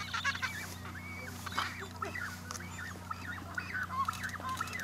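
A penguin colony calling: many short calls overlapping one another throughout, over a steady low hum.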